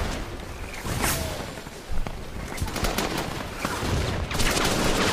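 Battle soundtrack of scattered gunfire: several sharp shots, about 1, 2 and 4.5 seconds in, over a steady low rumble.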